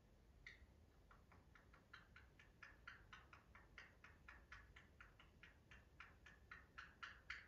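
Conure clicking: a faint, irregular run of quick tongue clicks, about four a second, made by the bird rattling its tongue inside its mouth. The sound is usually a sign that the conure is excited or happy.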